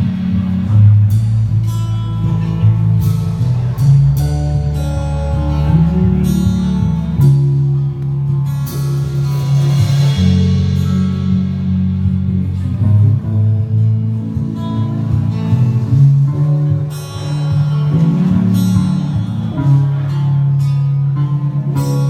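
Live band music with guitar playing, over a steady bass line.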